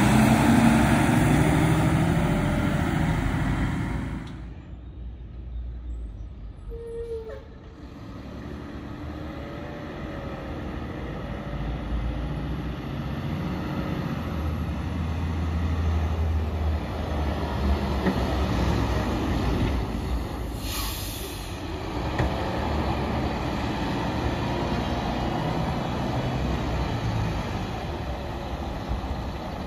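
Mack LEU front-loading garbage truck with a McNeilus Contender Curotto-Can body, running loud and close for the first few seconds, then heard from down the street with a steady engine rumble that builds as it drives and approaches. About two-thirds of the way through there is a brief hiss of air brakes.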